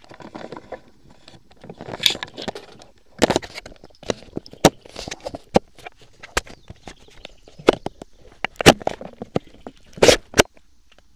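Irregular clicks, knocks and rustling of an AR-style rifle being handled, picked up through the camera mounted on it. Sharpest knocks about three seconds in and near the end.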